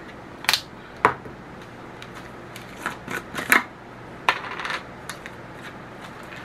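Hard plastic clicks and knocks, a string of separate sharp taps, as the automatic salt grinder's clear plastic chamber and a jar of coarse pink salt are handled and salt crystals are poured in.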